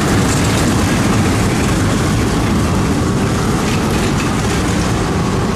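A tram passing with road traffic on a wet street: a steady rumble with tyre hiss.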